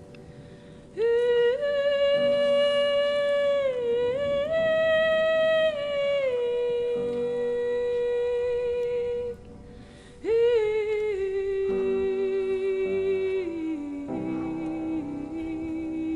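Background music: a wordless voice humming long held notes that slide from one pitch to the next, over soft accompaniment. The voice breaks off for about a second partway through, then comes back.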